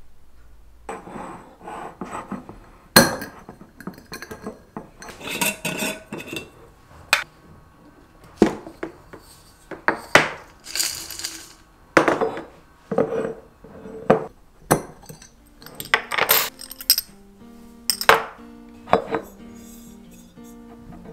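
Glass storage jars and a metal screw lid clinking and knocking as they are handled and set down on a countertop, a series of short sharp clinks. Soft background music comes in about two-thirds of the way through.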